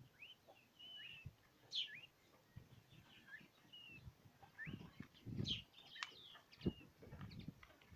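Young peachicks, about twenty days old, peeping in short repeated chirps. A few sharp knocks sound as beaks peck at the feed tray.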